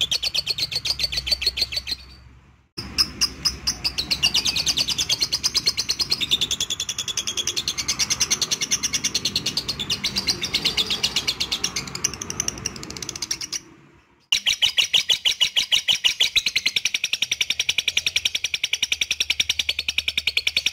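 Lovebird chattering in a long, rapid trill of sharp chirps, many a second, breaking off briefly twice, about two seconds in and again near fourteen seconds.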